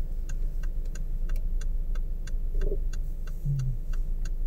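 Car idling with a steady low rumble while its indicator ticks evenly, about three clicks a second.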